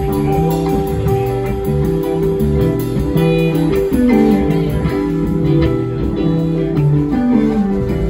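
Live rock band playing an instrumental passage: electric guitar, bass, drums and keyboard together, with a note sliding down about halfway through and again near the end.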